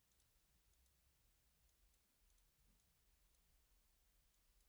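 Near silence, with faint computer mouse clicks at irregular intervals, about a dozen in all.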